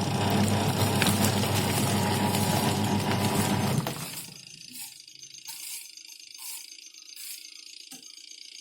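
Voltas Beko washing machine's motor running with a steady hum, stopping about four seconds in. The rest is much quieter, with a few faint knocks. This is the stop-start turning of a wash cycle.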